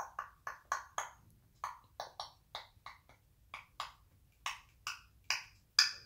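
African grey parrot imitating a dog's sniffing: a run of about sixteen short, sharp sniffs, two or three a second, with the loudest one near the end.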